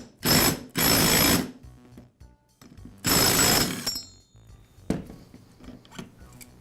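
Ratchet wrench clicking in three loud strokes, loosening the fastener that holds the pulley on a Husqvarna mower transmission's shaft, followed by a short metallic ring.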